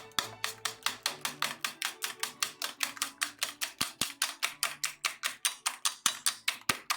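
Rapid, evenly spaced clicks from a kitchen utensil being worked quickly in food prep, about six strokes a second.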